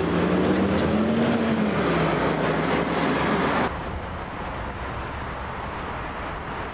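Street traffic noise with a vehicle engine running and shifting in pitch. About three and a half seconds in it drops abruptly to a quieter, steady outdoor background.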